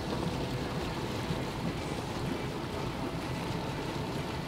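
Steady wash of water and wind aboard a small sportfishing boat, with the boat's motor running low underneath.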